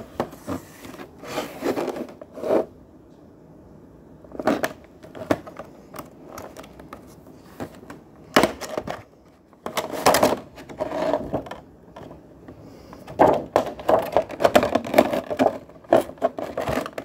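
Hands handling a cardboard toy box with a plastic window: irregular taps, scrapes and rustles of the packaging, in scattered bursts that come thick and fast in the last few seconds.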